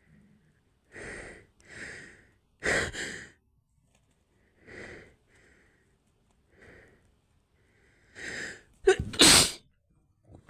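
A woman sneezing, set off by a cotton swab tickling inside her nose: a few short gasping breaths build up to a sneeze about three seconds in, then more gasps lead to a second, louder sneeze near the end.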